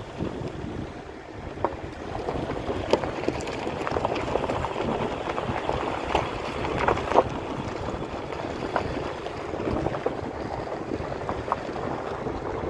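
Wind rumbling on the microphone, with scattered clicks and crackles.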